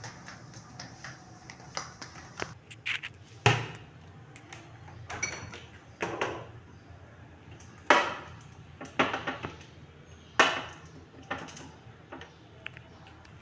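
Refrigerator being opened and dishes set down on its shelves: a series of separate knocks and clunks, the loudest about three and a half, eight and ten and a half seconds in.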